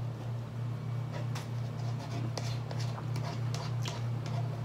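Broth being drunk from a paper Cup Noodles cup: faint gulps and small clicks of the cup against the mouth, over a steady low hum that pulses softly.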